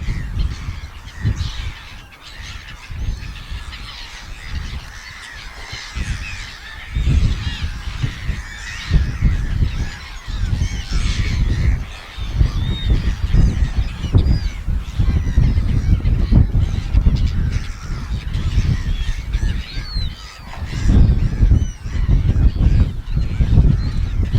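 Many seagulls calling over one another in a continuous chatter of short calls, with wind gusting on the microphone.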